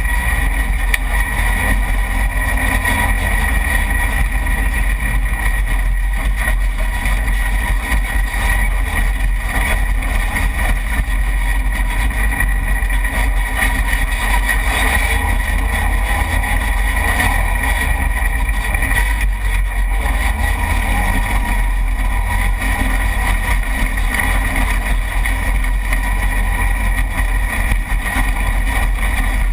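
Side-by-side UTV engine running steadily as the machine drives along a rough dirt trail, heard from a camera on its hood, with a strong low rumble underneath.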